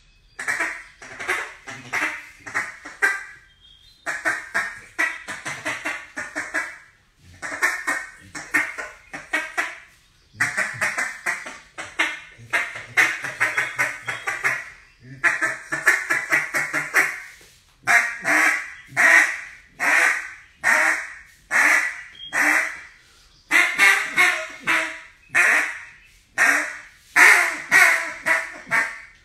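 Acrylic duck call blown in runs of short, quick quacks, several notes to a run, with brief pauses between the runs.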